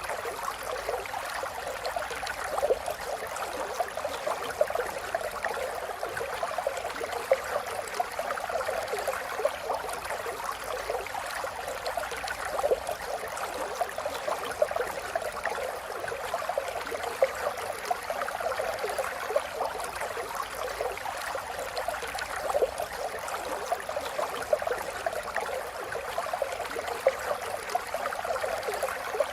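River water flowing and babbling over rocks, a steady rush full of small splashes and gurgles.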